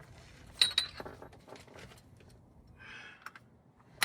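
Metal hand tools being handled: a sharp, ringing metallic clink about half a second in, then lighter clicks and rattles and another sharp click at the end, as the oil filter wrench and ratchet are readied to tighten the new oil filter.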